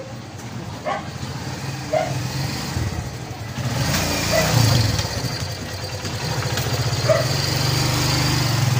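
A motorcycle engine running steadily with a low pulsing beat, getting louder from about halfway through. A dog barks briefly a few times.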